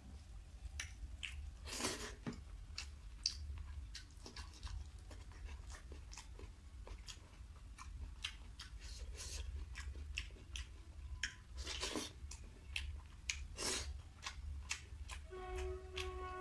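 Close-up sound of a person chewing mouthfuls of rice and curry, with lips smacking in a rapid run of short wet clicks and a few louder smacks. A steady low hum sits underneath, and background music comes in about a second before the end.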